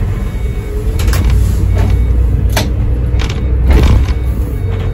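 Iveco Crossway Line bus with Cursor engine and ZF six-speed gearbox under way, heard from the driver's cab as a steady low engine rumble. Several sharp rattles and knocks sound through it, the loudest near the end.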